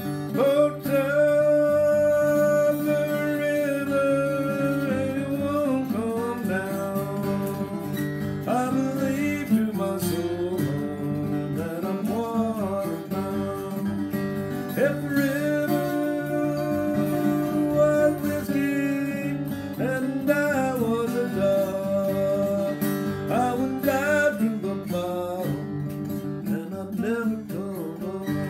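A man singing an old-time mountain song in phrases with short breaks, accompanied by his own steel-string acoustic guitar picked steadily underneath.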